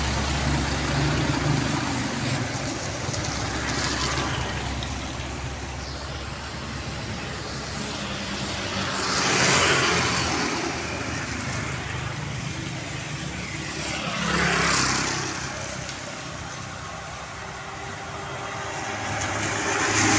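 Road traffic on a wet road: passing trucks, cars and motorbikes with their tyres hissing through surface water over a steady background hiss. The tyre hiss swells loudly as vehicles pass, about nine and fifteen seconds in, and builds again near the end.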